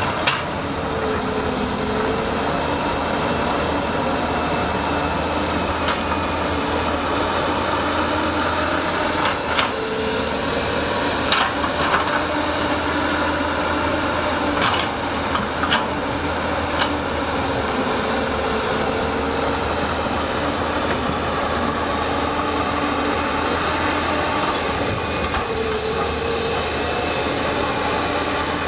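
Hydraulic excavator digging: the diesel engine runs steadily, with a tone that swells and dips now and then as the hydraulics take load. A handful of sharp clanks, mostly in the middle, come from the bucket striking rock.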